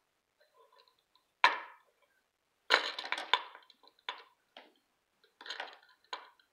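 Irregular sharp clicks and knocks from a small dog in a seizure as it twists and jerks. A loud one comes about a second and a half in, then a quick cluster around three seconds, then several scattered ones.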